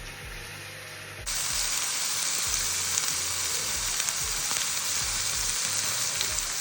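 Chicken tikka pieces frying in a little oil in a hot pan: a steady sizzle with small pops, jumping suddenly louder about a second in.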